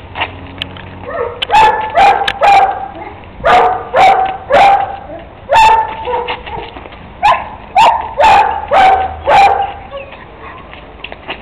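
Kuvasz puppy barking: about a dozen short, loud barks, some in quick runs of two or three, then pauses, over roughly eight seconds.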